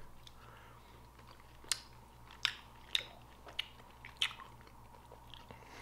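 A person chewing a soft green-apple gummy candy close to the microphone: five or so short, sharp mouth clicks and smacks, roughly every half second, over a faint background.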